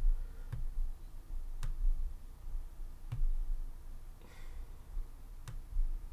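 Computer mouse clicking: a few single sharp clicks a second or more apart, each with a soft low thump.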